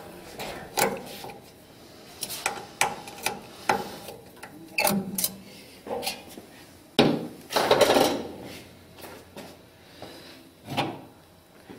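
Irregular small clicks, taps and knocks of metal parts and a hand tool as the dial indicator is unscrewed and lifted off the print-head carriage. A louder scraping clatter comes about seven seconds in.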